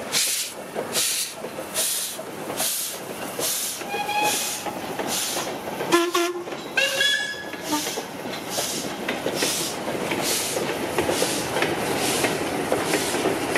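LMS 8F 2-8-0 steam locomotive pulling a goods train away at low speed: even exhaust chuffs with steam hiss, about two a second, as the wagons roll and clank behind it, their clatter growing louder later on. A few brief high squeals come about four and seven seconds in.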